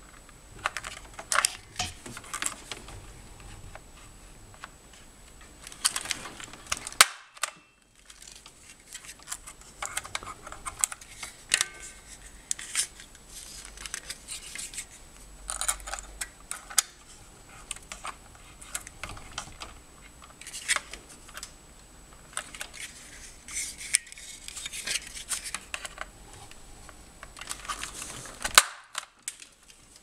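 Irregular sharp clicks and snaps of a punch-down tool seating network cable wires into a patch panel's terminal blocks, with rustling of the wires being handled between strikes.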